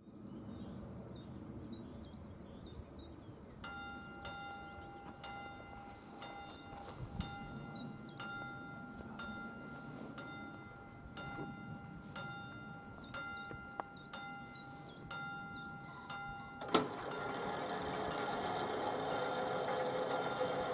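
Level-crossing warning bell striking about once a second, starting about four seconds in, each strike ringing on. Near the end a sharp click sets off a louder, steady mechanical sound under the bell as the crossing barriers lower.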